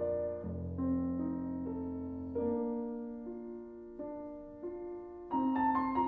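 Slow background piano music: single notes and chords struck and left to ring and fade, with a louder, fuller chord about five seconds in.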